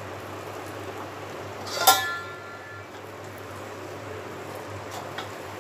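A metal lid set down on a kadhai with a single clank about two seconds in, ringing for about a second, over a low steady sizzle of green chillies frying in oil.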